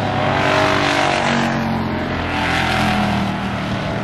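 Several stock car engines running at racing speed as the cars pass on a paved oval, their pitch rising and falling.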